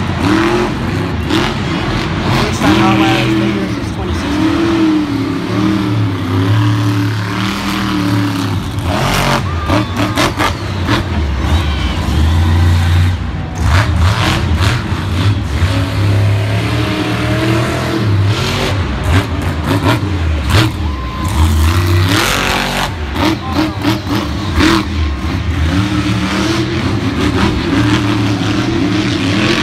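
Monster truck engine revving hard and dropping back again and again, its pitch rising and falling, with several sharp bangs along the way.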